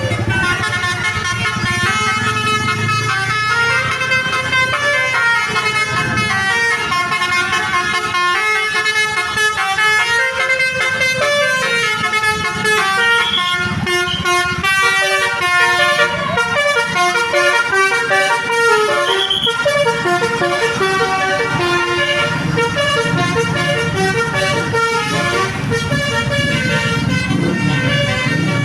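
Basuri multi-tone bus horns playing a song melody in quick successions of notes, with a bus engine running underneath.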